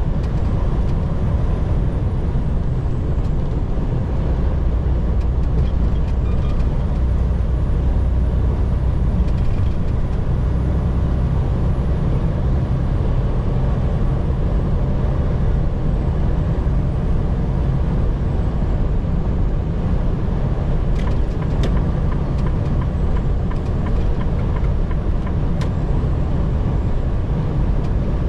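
Steady low drone of a semi-truck's engine and road noise while driving, with a few faint clicks late on.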